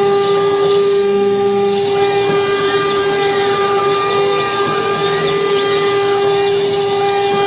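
Mini CNC machine cutting MDF: its spindle motor runs with a steady whine, while the stepper motors' tone rises and falls in pitch again and again as the axes move.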